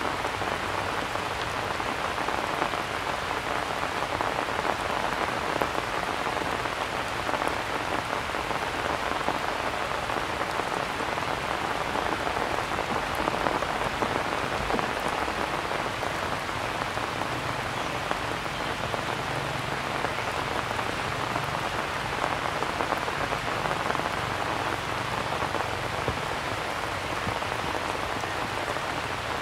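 Steady rain falling on grass and stone, an even, unbroken hiss of drops.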